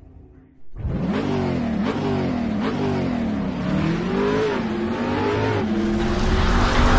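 Car engine revving, starting abruptly about a second in, its pitch climbing and dropping several times before holding steady near the end.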